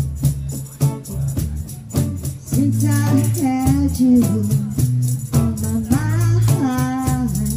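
Live band music from an electric guitar, an electric bass and a cajon keeping a steady beat. A voice sings drawn-out, bending notes from about two and a half seconds in and again near the end.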